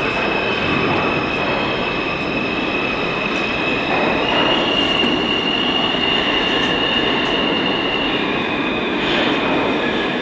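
New York City subway train running through an underground station: a steady rumble of wheels on rail with a high wheel squeal over it that steps up in pitch about four seconds in and drops back later.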